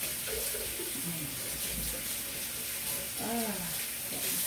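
Kitchen tap running steadily into a stainless-steel sink, splashing over hands being washed under it.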